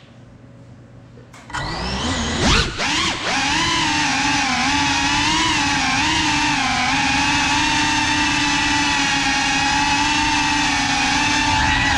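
Brushless motors and ducted propellers of a GEPRC CineLog 35 cinewhoop drone spooling up about a second and a half in, the pitch swooping as it lifts off, then settling into a steady many-toned whine as it flies.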